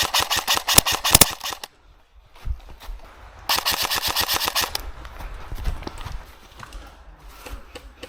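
Airsoft electric rifle firing two full-auto bursts of rapid, evenly spaced clicks: one right at the start lasting over a second, and a second burst about three and a half seconds in, followed by scattered quieter clicks.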